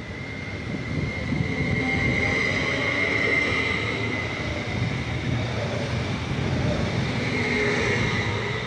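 Red DB Regio electric multiple-unit train rolling past along a station platform. Its wheels rumble steadily on the rails, swelling about two seconds in and easing near the end as the last cars go by.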